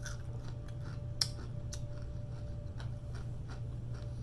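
Soft clicks and smacks of someone eating, with one sharper click about a second in, over a steady low hum.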